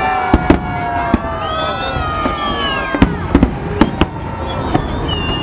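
A fireworks display: about seven sharp bangs of shells bursting at irregular intervals over a continuous din, with several long tones gliding in pitch, mostly downward, above it.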